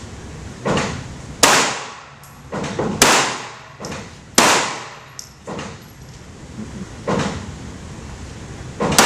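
A string of about nine handgun shots fired at an indoor range. Each is a sharp report with a long echo off the concrete walls, spaced irregularly, some close together, with a short pause around six seconds in.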